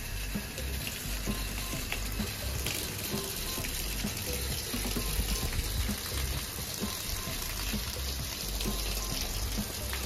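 Garden-hose water spraying through an outdoor air-conditioner condenser's coil fins from the inside and running and splashing down the unit, a steady rush of water, rinsing off foam coil cleaner. Background music plays underneath.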